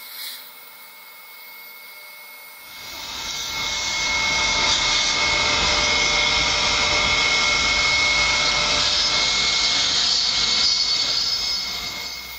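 Dental surgical equipment running during a wisdom tooth extraction: a loud, steady rushing hiss that builds up about three seconds in, holds, and cuts off near the end.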